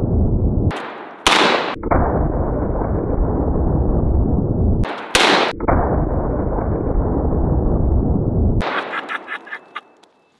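Slowed-down rifle shot audio: a deep, drawn-out rumble from a long-barrelled AR-15, broken twice by sharp full-range rifle cracks about four seconds apart. The rumble cuts off about eight and a half seconds in and fades to faint ticks.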